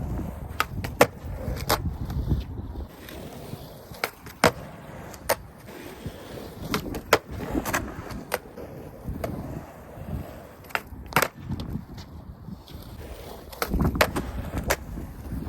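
Skateboard rolling with a low rumble, broken by a dozen or so sharp clacks of the board and wheels.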